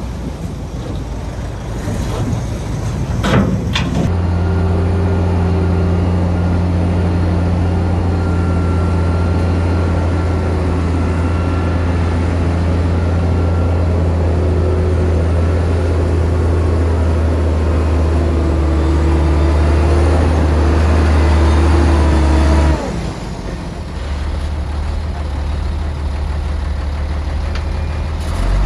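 Heavy diesel engine of a crawler bulldozer running steadily under load, with a few sharp metallic clanks about three seconds in. Near the end the engine note drops off suddenly to a lower, rougher running sound.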